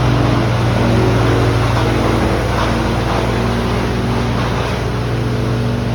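A motor or engine running steadily with a constant low hum, unchanging in speed.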